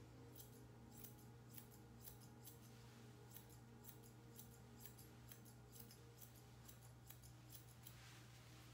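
Grooming scissors snipping through a poodle puppy's coat: a run of quick, sharp snips, about three a second, that stop shortly before the end. A low steady hum runs underneath.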